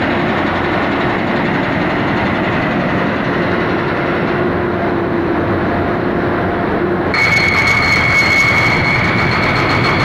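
Heavy construction machinery working in a tunnel under construction: a loud, steady mechanical din echoing off the tunnel walls. About seven seconds in, a high steady whine starts suddenly and continues.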